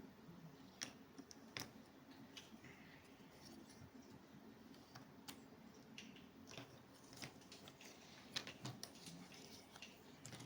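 Faint, irregular clicks and taps of jigsaw puzzle pieces being handled and pressed into place.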